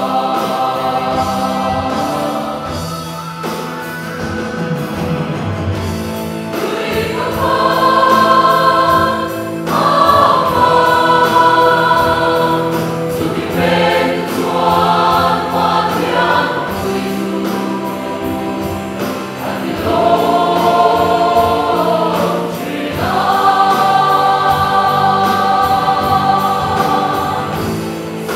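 Mixed church choir singing a hymn in long held chords, phrase after phrase, accompanied by a band of keyboard, acoustic guitar, bass guitar and electronic drum kit.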